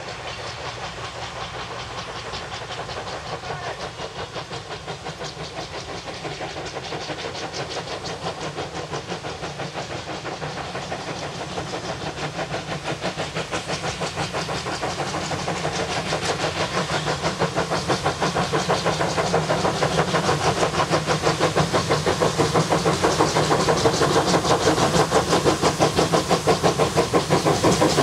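Small steam tank locomotive working hard up the line toward the listener: a steady run of regular exhaust beats that grows steadily louder as it draws near.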